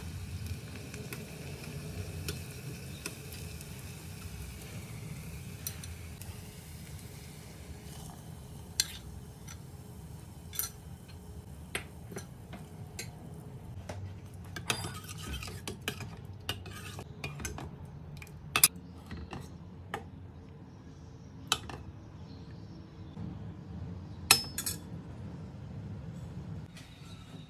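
A metal spoon and ladle clinking and scraping against steel cookware while dal is stirred and ladled out. There is a string of sharp separate clinks in the second half, over a steady low hum.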